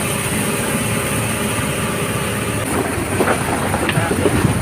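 Fishing boat's engine running steadily, with rougher irregular sounds joining in a little before the three-second mark.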